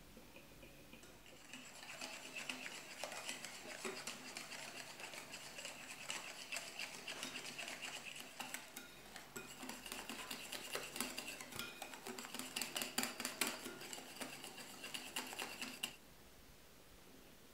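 Wire whisk beating instant coffee, sugar and hot water by hand in a ceramic bowl, whipping it into a thick coffee cream: rapid clicking and scraping of the wires against the bowl. It starts about a second and a half in and stops abruptly near the end.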